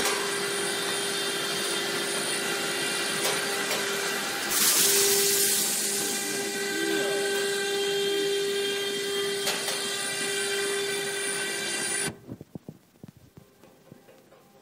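Biscuit production line machinery running: a steady hum with several held tones, and a burst of hiss about four and a half seconds in that lasts a second or so. At about twelve seconds it cuts off abruptly to a quiet room with a few faint clicks.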